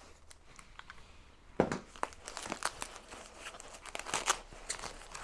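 Packaging wrap crinkling and tearing in irregular bursts as a wrapped metal kit part is unwrapped by hand. A sharp rip about one and a half seconds in is the loudest sound.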